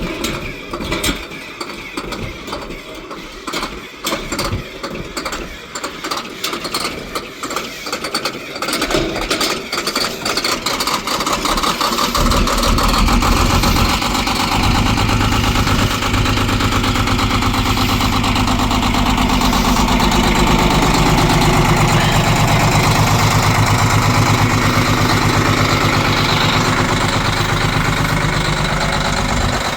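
Detroit Diesel 11.1-litre inline-six in a 1995 International cab-over semi cranking over on the starter for about twelve seconds in a hard cold start, then catching and running steadily.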